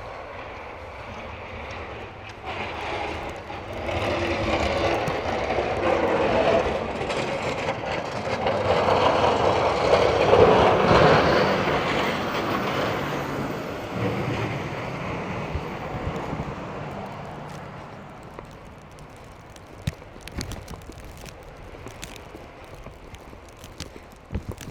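A road vehicle passing, its engine and tyre noise growing louder to a peak about ten seconds in, then fading away.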